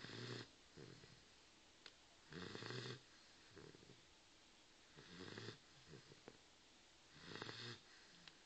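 Dogue de Bordeaux snoring in its sleep: four rasping snores about two and a half seconds apart, with softer breaths between them.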